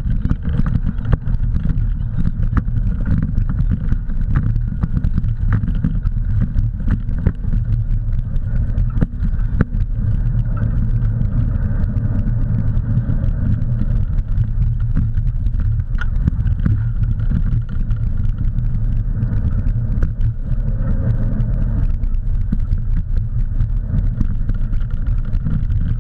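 Steady low rumble of wind buffeting the camera microphone while a bike rolls fast along a dirt trail, with frequent small clicks and rattles from the tyres and frame.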